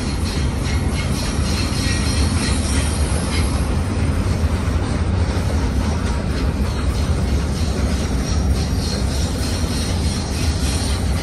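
Double-stack intermodal well cars rolling steadily past: a continuous low rumble of steel wheels on rail, with faint high wheel squeal in the first few seconds.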